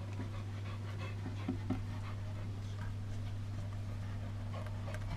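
Steady low hum with faint, scattered taps and scratches over it.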